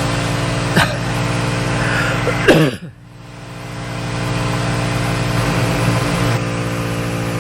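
An ARB 12-volt onboard air compressor running steadily while inflating a tire, over a Ford Transit van's idling engine. There is a sharp click about a second in, and a short louder sound that falls in pitch about two and a half seconds in.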